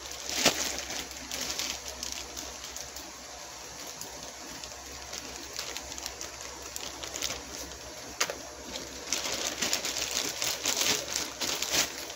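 A courier parcel's packaging being opened by hand, rustling and crinkling in irregular bursts. There is a sharp tear or snap about half a second in, and the rustling is busiest in the last few seconds.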